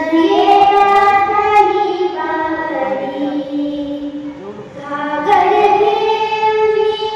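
A girl singing solo, holding long notes with wavering, ornamented pitch. She eases off about four seconds in and starts a new phrase just after five seconds.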